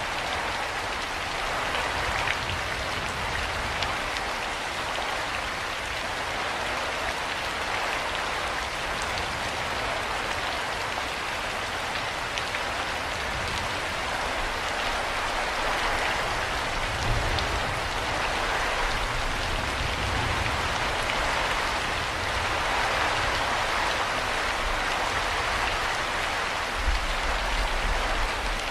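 Steady rain falling, an even hiss of many drops, with brief low rumbles about two thirds of the way through and near the end.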